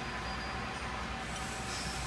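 Steady workshop background noise: an even low rumble and hiss with a faint steady hum, with no distinct knocks or clicks.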